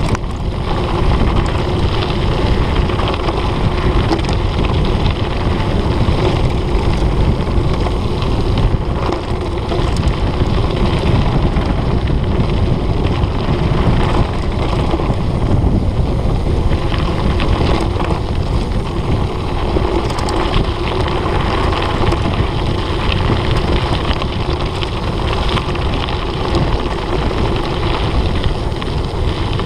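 Mountain bike descending fast on a gravel forest road: a steady rumble of tyres and frame vibration over the gravel, overlaid with heavy wind buffeting on the camera microphone.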